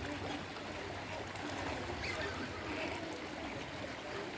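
Steady outdoor ambience of running water, with faint voices in the background.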